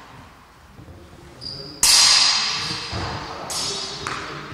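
A sword blade clashing against a metal buckler: a sharp clang about two seconds in that rings on and fades, a second ringing strike about three and a half seconds in, and a lighter tap just after.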